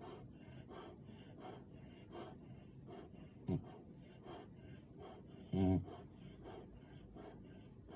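A sleeping puppy snoring like a pig. Quick, soft breaths come about three a second. A short snort comes about three and a half seconds in, and a louder, longer snorting snore about five and a half seconds in.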